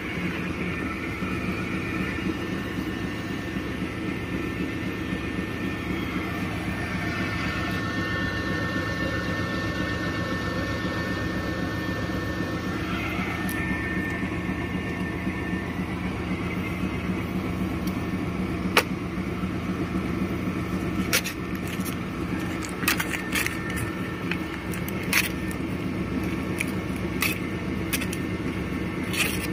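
Label slitting machine running: a steady motor and roller hum, with a thin steady whine over it for several seconds in the middle. In the second half come a scattering of sharp clicks.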